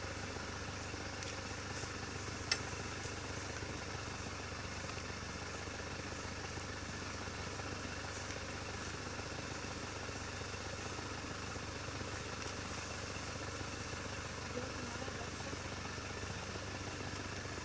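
A vehicle engine idling with a low, steady hum. One sharp click comes about two and a half seconds in.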